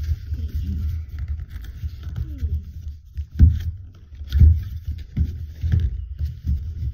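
A heavy cardboard box being handled and pried open: low thumps and knocks over a rumbling handling noise, with two louder thumps about three and a half and four and a half seconds in.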